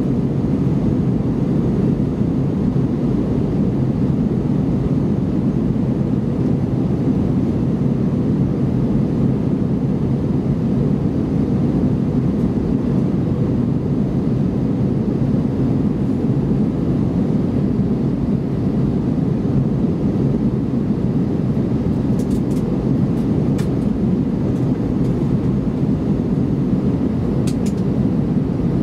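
Steady low cabin noise inside an Airbus A320-214 in descent: its CFM56 engines running and air rushing past the fuselage, heard from a window seat. A few faint clicks near the end.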